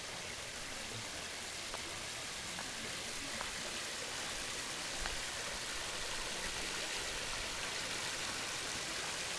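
Steady splashing rush of water spilling from a small rock waterfall into a swimming pool, growing a little louder as the pan moves closer.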